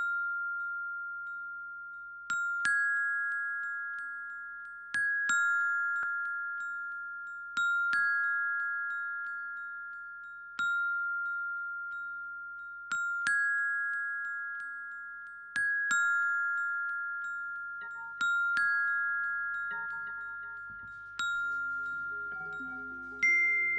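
Glockenspiel playing a slow, sparse instrumental figure: bell-like notes struck about every two and a half to three seconds, mostly in close pairs, each ringing out and fading slowly. Soft lower instrument tones join in during the last several seconds.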